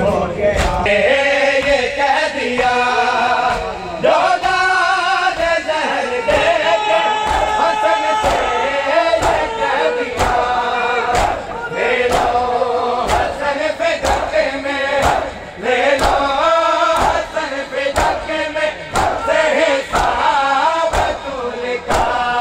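Men's voices chanting a Shia noha together, lamenting Imam Hasan's poisoning, over a steady beat of hand-strikes on chests (matam), about one to two a second.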